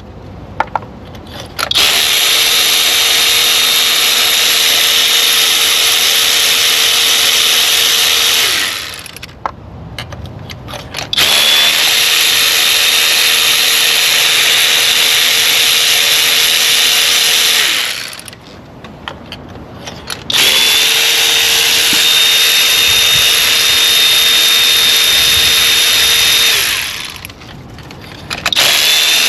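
Handheld electric power tool with a spark plug socket spinning spark plugs out of the cylinder heads: three long runs of about six seconds each of a steady motor whine, with short pauses and light clicks between them, and another run starting near the end.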